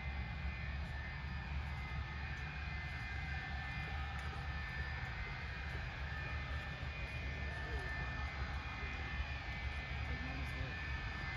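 Boeing 727's three Pratt & Whitney JT8D jet engines at idle thrust as the airliner taxis: a steady low rumble with a thin, high whine.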